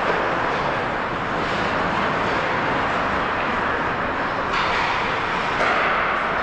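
Steady background noise of an indoor ice rink during a hockey game, with a couple of faint knocks in the second half.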